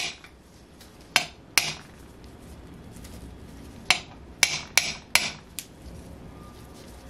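Sharp metallic clicks and clinks, irregular, about seven in all, as small RC engine parts (a ceramic ball bearing and the crankshaft) are handled and knocked together by gloved hands.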